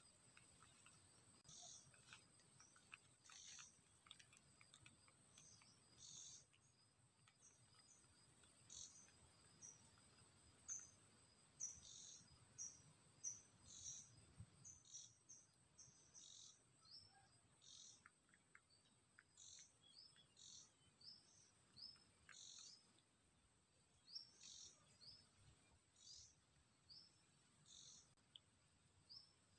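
Faint, high, short bird chirps repeating about once or twice a second, some rising slightly, over a steady thin high whine.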